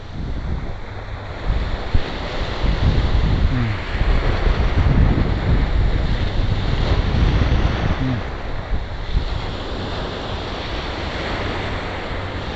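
Ocean surf breaking and washing up the beach, with wind buffeting the microphone; the surf swells louder in the middle.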